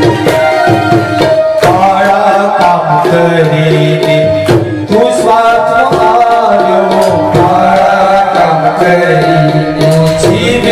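Live devotional music: tabla strokes in a steady rhythm under a sustained, gliding melodic line.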